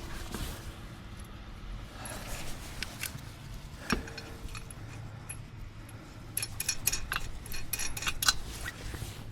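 Small metal parts and hand tools clinking and jingling during a roadside wheel change. Scattered light clicks, a sharper knock about four seconds in, then a busy run of clinks near the end.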